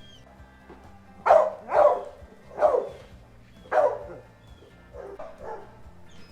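A dog barking: four loud, short barks in under three seconds, then two fainter ones near the end.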